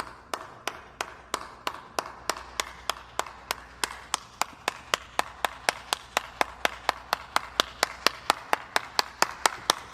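One person clapping hands at a steady pace, about three claps a second, growing slightly louder toward the end.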